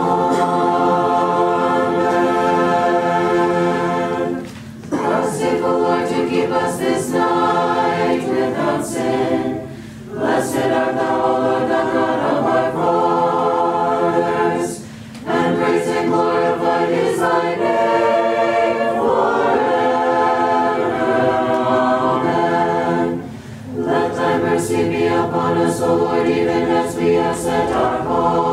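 Orthodox church choir singing a hymn a cappella, in several voices, with held phrases broken by four brief pauses.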